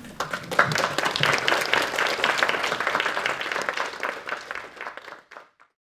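Audience applauding, many hands clapping at once, starting just after the talk's last words and fading away about five seconds in.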